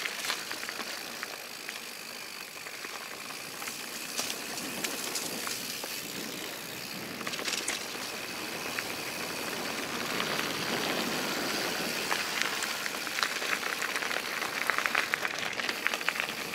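Rocky Mountain Instinct full-suspension mountain bike rolling downhill over a rough trail: steady tyre noise with frequent rattles and clicks from the bike, which come thicker and louder over the last few seconds.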